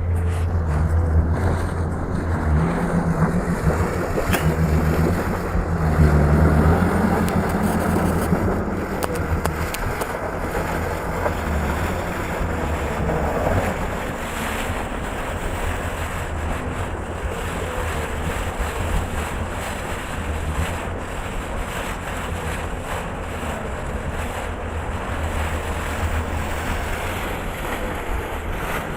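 Heavy construction machine's engine running steadily with a deep rumble, swelling a little about six seconds in, with wind noise on the microphone.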